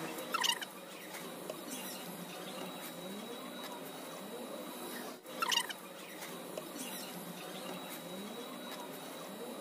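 Potting soil being scooped with a trowel and spread in a plastic planter box, giving soft scraping and rustling. Two short squeaky scrapes stand out, about half a second in and again in the middle.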